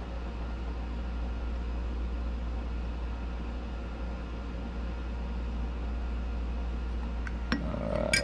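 Steady low background hum, with two or three light clinks near the end from a metal spoon against a glass measuring cup as colorant is stirred into liquid soft plastic.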